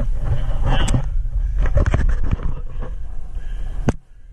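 A steady low rumble on the microphone, with several scrapes and knocks from the handheld action camera being handled and moved. A sharp click comes just before the end, and then the sound cuts off abruptly.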